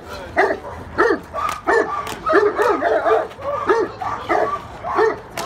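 Young Cane Corso barking repeatedly at a decoy during protection training, about eight sharp barks spaced roughly a half second to a second apart, as an aroused dog barks at a man in a bite suit.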